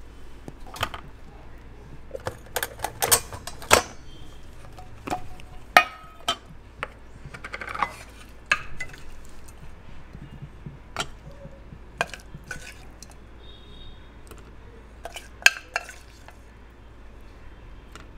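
Kitchenware clattering: irregular sharp clinks and knocks of a wooden spoon, lids and containers against a stainless-steel saucepan and steel lunch boxes as food is spooned in, with a quick cluster of knocks a few seconds in.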